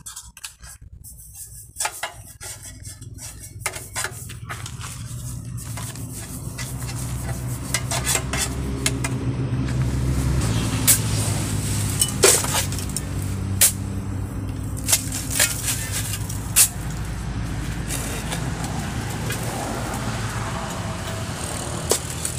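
Sharp metallic clinks and knocks from a steel two-block concrete-block mould and hand tools as the mould is oiled and filled with sand-cement mix. A steady low engine hum rises in about six seconds in and carries on underneath.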